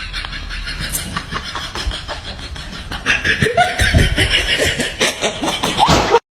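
Person laughing in quick snickering bursts, louder from about three seconds in, cutting off suddenly near the end.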